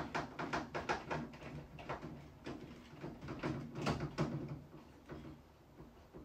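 Irregular small clicks, taps and rattles of hands handling the over-the-range microwave's casing and mounting parts. They come thick and fast for the first four seconds and then thin out to a few scattered knocks.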